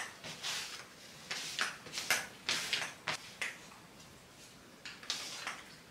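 Sticky lint roller rolled over dark clothing in a run of short rasping strokes, its adhesive sheet crackling as it picks up pet hair; the strokes stop a little past halfway, with one more near the end.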